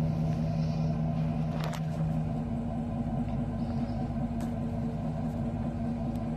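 A truck engine idling steadily, a low constant drone, with two light clicks, about two seconds and four and a half seconds in.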